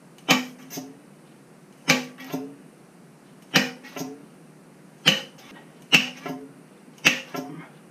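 Front fork of a 2019 BMW F850GS being yanked apart slide-hammer fashion: the inner tube's bushing and spacer slam against the outer tube in about six sharp metallic clanks that ring briefly, each roughly every second and a half and most followed by a lighter knock. Each blow is driving out the fork seal that is rammed tight in the outer tube.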